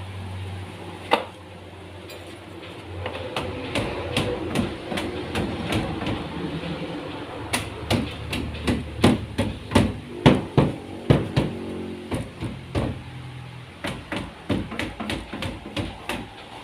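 Hammer blows in carpentry work: a single knock about a second in, then runs of repeated strikes, loudest in the middle at about two a second.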